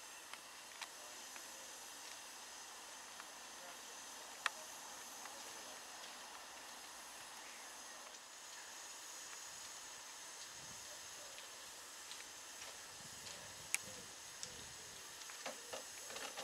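Faint steady hiss of steam escaping from an LNER J27 steam locomotive, with two sharp clicks, one about four seconds in and one near the end.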